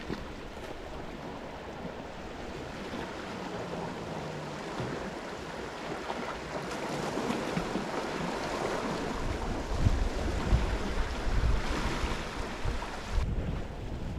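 Small sea waves washing over a rocky reef's edge, a steady surf hiss that swells in the second half. Wind buffets the microphone in low gusts from about two-thirds of the way in.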